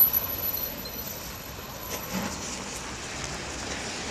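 A short sharp sound as the fuse is lit, then the lit fuse burning with a steady hiss, with smoke pouring from the barrel.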